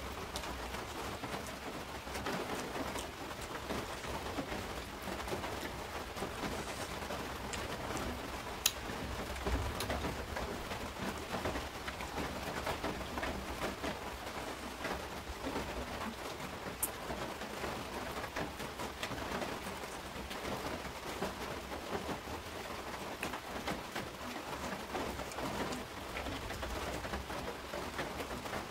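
Close-miked eating sounds: fingers squishing and mixing rice with fish curry and egg on a plate, and chewing, heard as a steady wet crackling. Two sharp clicks stand out, about a third of the way in and a little past the middle.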